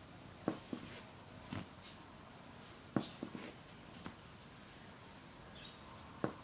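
Ragdoll kitten wrestling and batting a small ball on a fabric pet bed: soft, irregular knocks and rustles, the sharpest about half a second in and again about three seconds in.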